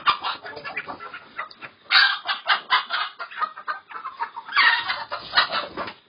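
A shedful of layer hens clucking and calling all at once in a loud, dense chorus. It swells louder about two seconds in and again around five seconds.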